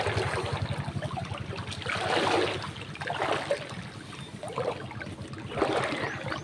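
Shallow water splashing and lapping at a fishing boat's hull and the muddy shore, in separate splashes roughly once a second, over a steady low rumble.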